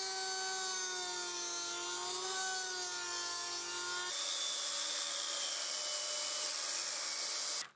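A Dremel rotary tool's small cutoff disc whines steadily as it cuts slowly into a stainless steel bolt, the hard stainless wearing the disc. About four seconds in, an angle grinder's cutoff wheel takes over with a hissing grind through the bolt, which cuts off suddenly near the end.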